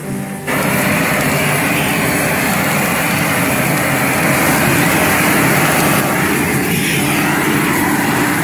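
Propane garden flame thrower burning full on: a loud, steady rushing roar that starts abruptly about half a second in.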